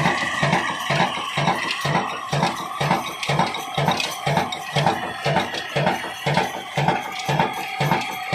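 Old slow-speed single-cylinder 'Diamond' black diesel oil engine running steadily: an even beat of about two and a half thumps a second with a metallic clatter.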